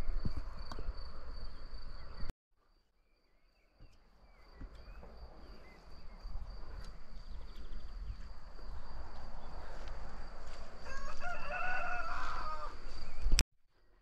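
A rooster crowing once, a drawn-out call of about two seconds near the end, over a thin steady high-pitched tone. A low rumble fills the first two seconds before the sound cuts out briefly.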